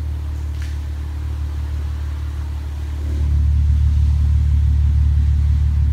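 Audi S4 B8's supercharged 3.0 V6 idling through an IPE Innotech exhaust with a steady, deep rumble. About three seconds in, the idle gets louder and deeper and holds there.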